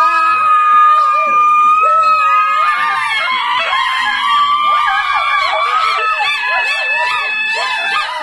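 Several women and girls screaming and shrieking with excitement in high-pitched, long-held screams that overlap one another, mixed with excited voices.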